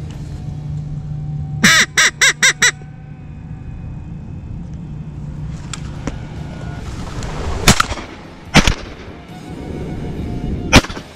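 Five quick, loud duck quacks in a row, then three shotgun shots, the second about a second after the first and the third about two seconds later.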